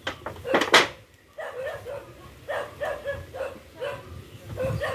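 A dog barking repeatedly in short barks, two to three a second, after a loud short clatter about half a second in.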